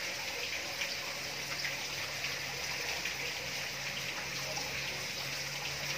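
Steady trickling of running water, with a faint low hum beneath it.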